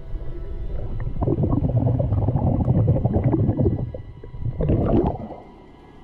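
Scuba diver's exhaled bubbles rumbling and gurgling underwater, heard through the camera housing: one long bout, then a shorter burst near the end.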